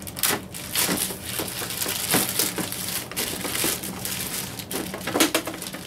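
Clear plastic wrapping crinkling as it is pulled off a plastic carrying case: steady rustling with several sharper crackles.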